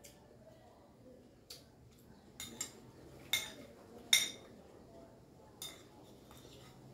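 Metal spoon clinking and scraping against a glass plate while scooping food: a series of sharp clinks, the loudest about four seconds in.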